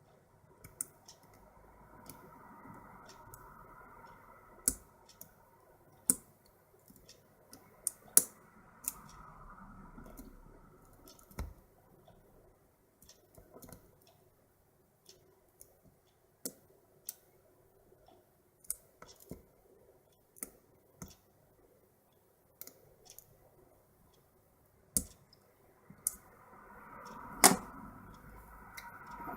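Lock pick and tension wrench clicking in a padlock's keyway during single-pin picking: irregular sharp clicks, a few close together, scattered throughout with the loudest one near the end.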